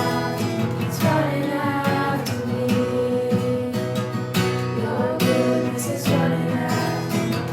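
Worship music: an acoustic guitar strummed steadily, with singing over it.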